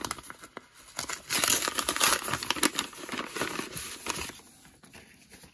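White paper envelope being pulled open and handled, its paper crinkling and rustling, busiest in the middle and dying away near the end.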